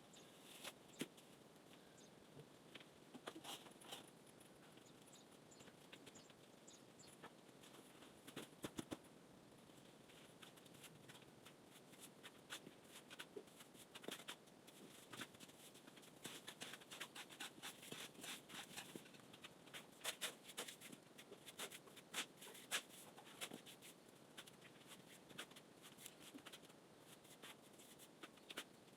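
Faint, irregular small clicks and taps, thickest through the middle of the stretch, over a quiet background.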